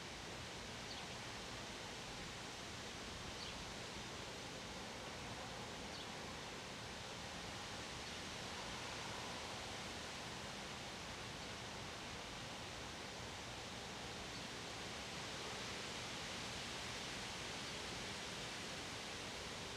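Steady wind, a soft even rushing hiss that swells a little now and then, with three faint short high chirps in the first six seconds.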